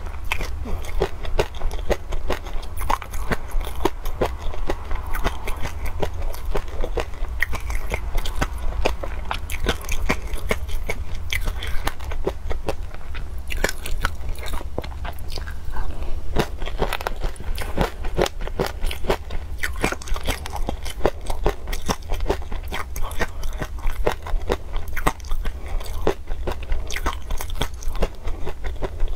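Close-miked chewing and crunching of peanuts in chili sauce: dense, crisp crackles and wet mouth sounds, one after another, over a steady low hum.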